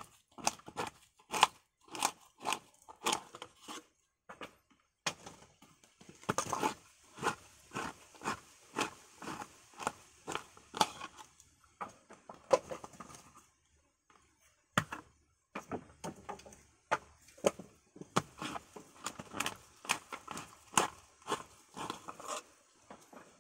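Coconut meat being pried and scraped out of the shell with a tukalan (coconut-meat scraping tool) for copra: a run of short, sharp scraping cracks about two a second, pausing briefly a little past the middle.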